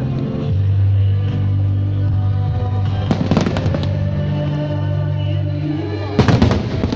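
Pyromusical fireworks display: a music soundtrack with long held bass notes, with aerial firework bursts crackling and banging about three seconds in and a louder volley near the end.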